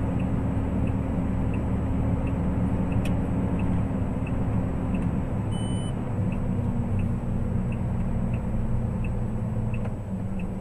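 Motor vehicle engine and road noise, a steady low rumble while driving. Faint regular ticking comes about every two-thirds of a second, with a short electronic beep about halfway through.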